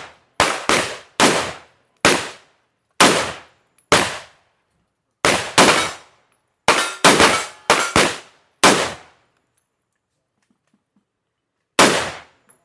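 A firearm fired semi-automatically in an irregular string of about fifteen shots, some in quick pairs and triplets, each crack followed by a short decaying echo; after a pause of about three seconds, one more shot near the end.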